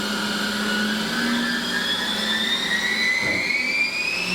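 Haas EC-1600-5X CNC horizontal machining center's 50-taper spindle speeding up from 2,000 toward 3,500 RPM: a whine that climbs steadily in pitch, over a steady low machine hum.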